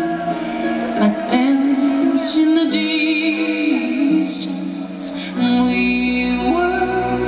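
Show soundtrack music with singing, played loud over the show's loudspeakers; deep bass comes in about five and a half seconds in.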